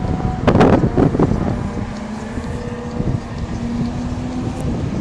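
Wind buffeting a phone's microphone, heaviest in the first second or so, with a faint steady engine drone underneath.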